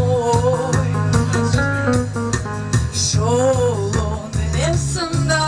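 Music: a singing voice over a bass line and a steady beat.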